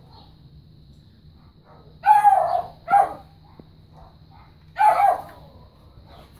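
A dog barking three times: two barks close together, then a third about two seconds later.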